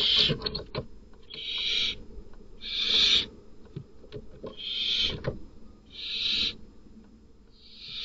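Barn owls hissing inside a nest box: about six harsh, rasping hisses, each about half a second long and repeated every second or two, with short knocks and scuffles between them. The hissing is typical of a barn owl's defensive threat.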